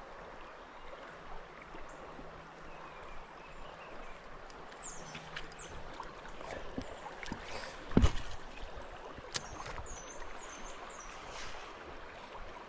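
Creek water running steadily, with scattered small clicks and one sharp knock or splash about eight seconds in. A few short, high chirps come near the middle and again toward the end.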